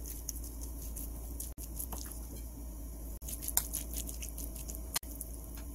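Spoons stirring julienned raw potato with egg yolk and seasoning on a ceramic plate: soft wet squishing with many light clicks of the spoon against the plate.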